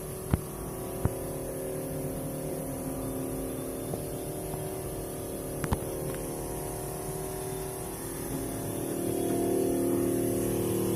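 Panasonic NR-BW414SS refrigerator making a steady droning noise with a few sharp ticks, growing louder about nine seconds in. The noise comes from the fan catching on ice built up around it, which should not form there.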